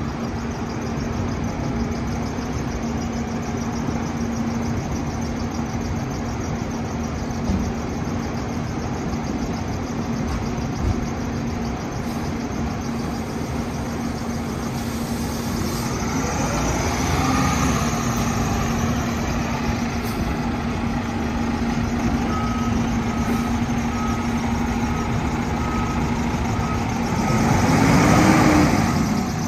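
A diesel fire engine idling, with its engine revving up briefly about halfway through. It then backs up with its reversing alarm beeping steadily, and the engine grows loudest near the end as the rig moves close by.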